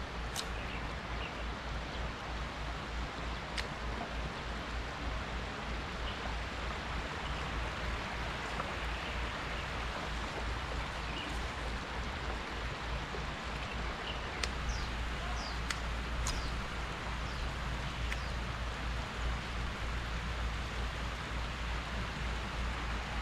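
Steady rushing noise of flowing stream water, with a few faint sharp clicks and a handful of short high chirps in the second half.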